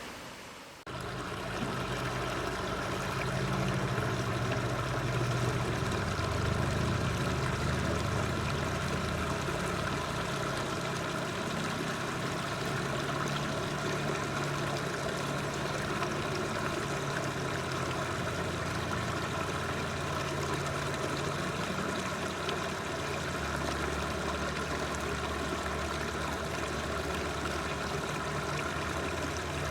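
Waterfall: a steady rush of falling water, starting abruptly about a second in.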